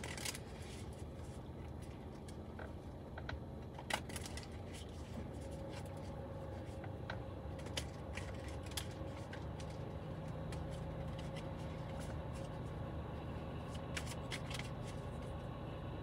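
Tarot cards being shuffled and handled, a scatter of soft flicks and taps now and then, over a steady low hum inside the car.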